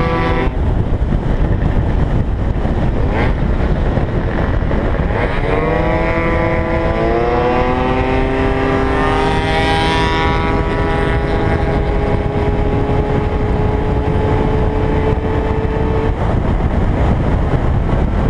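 Gilera Runner FX scooter's two-stroke engine, bored to 172 cc, heard onboard under heavy wind buffeting on the microphone. Its note drops away just after the start as the throttle closes, then about five seconds in it climbs in pitch under acceleration and holds one steady high note until it fades near the end.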